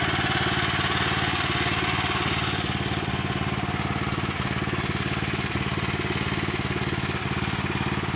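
Small gasoline engine of a Woodland Mills HM122 portable bandsaw mill running steadily.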